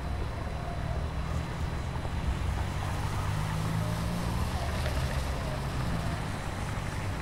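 Steady low rumble of downtown street traffic as an RTD light-rail train approaches at low speed.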